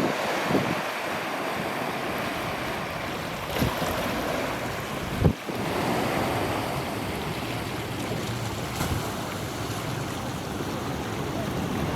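Wind blowing across the microphone: a steady rushing noise, with short low thumps of gusts about half a second, three and a half and five seconds in.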